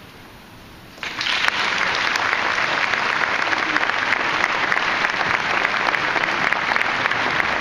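A brief hush, then audience applause breaks out suddenly about a second in and continues as steady, dense clapping.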